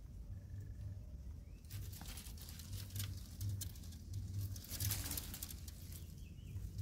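Leaves and thin branches rustling and crackling as a young macaque climbs and clambers through them. This runs in a dense patch from about two seconds in until about five and a half seconds in, over a steady low rumble.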